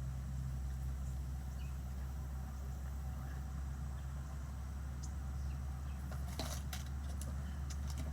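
A steady low machine hum, like a motor running, with a few faint taps near the end.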